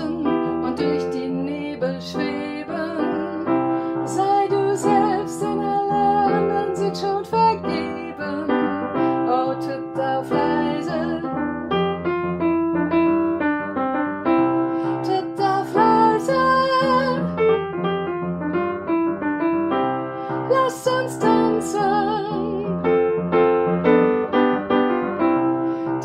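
Upright piano played with chords and melody, with a woman's singing voice over it at times.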